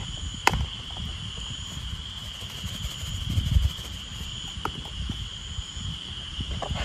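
Insects chirring in a steady high drone, over wind buffeting the microphone with a low rumble that swells about halfway through. Two sharp clicks stand out, one about half a second in and one near the two-thirds mark.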